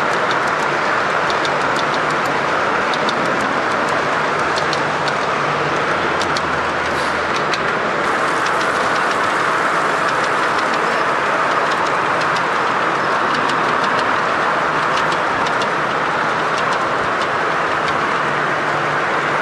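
O-gauge model trains rolling along the layout, their wheels ticking irregularly over the rail joints above a steady, noisy background.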